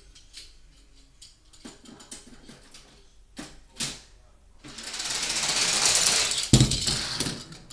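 Hot Wheels die-cast toy cars rattling down a plastic track, the noise building over about two seconds to a sharp clack about six and a half seconds in, then dying away. Scattered light clicks come before it.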